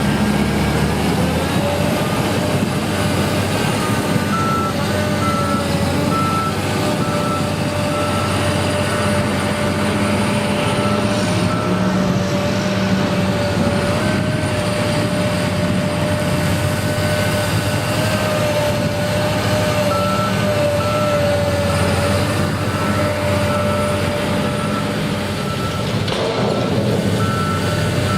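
Heavy construction machine's diesel engine running steadily under a constant whine, with its reversing alarm beeping repeatedly in two spells, starting a few seconds in and again in the second half.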